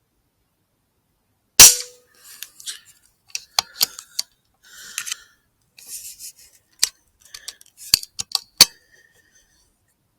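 A single sharp gunshot crack about a second and a half in, then a scattered series of clicks and short rustling scuffles.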